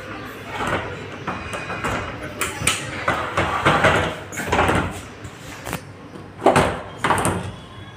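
A sliding window being moved in its track: an irregular run of scraping, rattling knocks, the two loudest near the end.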